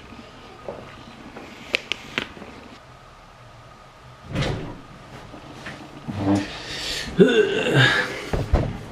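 Household door sounds: a few sharp latch-like clicks, a door thudding shut, then shuffling, knocks and a short creak as someone moves in and sits down.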